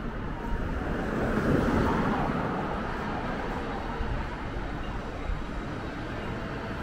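Street traffic noise: a vehicle passes close, its sound swelling about a second and a half in and then easing off, over a steady hum of road traffic.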